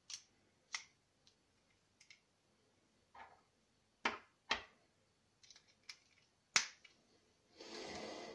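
Small steel tool parts (sockets, bits and an extension bar) clicking and clacking against each other and the plastic case as they are picked up and put together, about ten separate clicks. A short scraping rattle lasts about a second near the end.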